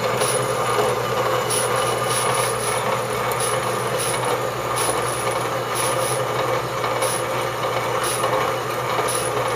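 Metal-cutting bandsaw running steadily, its toothed blade rasping through a metal bar under the weight of the saw arm, cutting two sections at once. A steady motor hum sits under the cutting noise, and a light high tick recurs about once a second.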